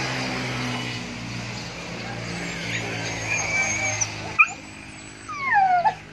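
High whining animal cries that fall steeply in pitch near the end, the loudest sound here, over a steady low hum, with a single sharp click about four seconds in.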